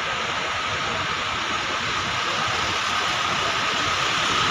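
Steady hiss of rain falling on wet pavement, with a light truck's engine running close by, a little louder near the end.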